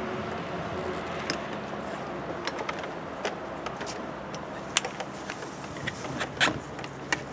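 Scattered sharp clicks and creaks from an RV window frame being pushed and pried loose from the sealant glued along its edge, the loudest about five and six and a half seconds in, over steady outdoor background noise.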